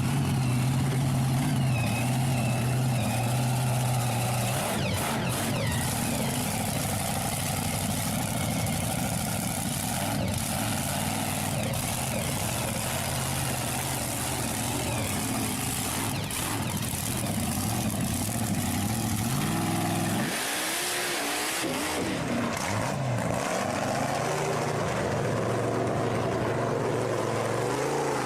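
Engine running and revving, a steady low drone whose pitch wavers up and down in the last several seconds.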